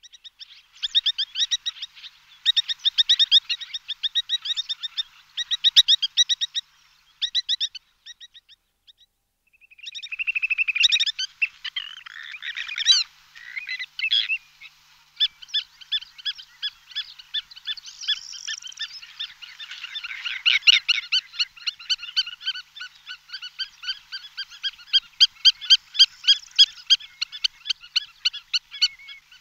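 Rapid, high-pitched squeaking and chattering calls in quick trains, breaking off briefly about eight seconds in and settling into steady rhythmic pulsing in the second half.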